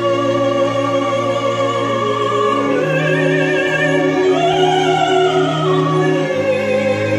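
Operatic soprano singing over sustained orchestral strings, the voice entering with wide vibrato about three seconds in.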